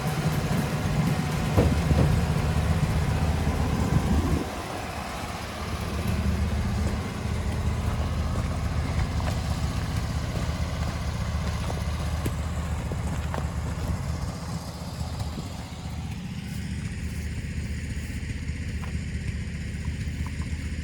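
Portable bandsaw mill's gasoline engine running steadily, louder for the first four seconds or so, with a hiss over it that thins out near the end.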